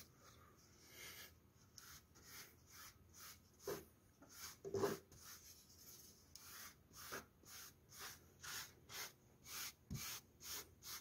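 Wide flat brush laden with water-based varnish stroking across a pine board, a faint brushing rub. The strokes come irregularly at first, then steadily at about two to three a second in the second half.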